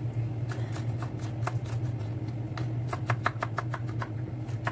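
Kitchen knife chopping garlic cloves on a wooden cutting board: scattered taps at first, then a quick run of taps about two and a half seconds in. A steady low hum runs underneath.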